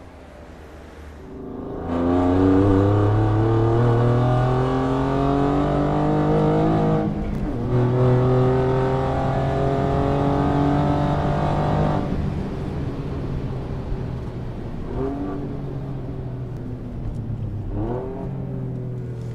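Performance car exhaust under hard acceleration. The engine note climbs steadily through one gear, breaks briefly at an upshift about seven seconds in, then climbs again through the next gear before easing off. Two quick rev blips follow near the end.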